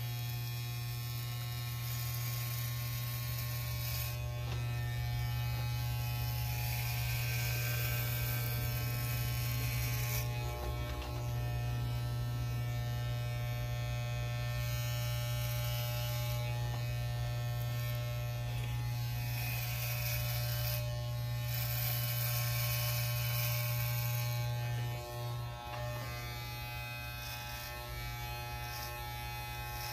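Electric hair clippers running with a steady buzz as they shave hair down close to the scalp, with a hiss on top that comes and goes as the blades move over the head. The buzz dips briefly twice, about eleven seconds in and again near twenty-five seconds.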